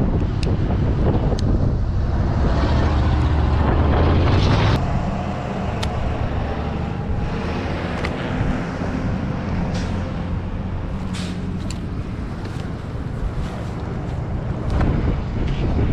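Motor vehicle running: a steady low rumble, louder for the first few seconds, with a few brief clicks.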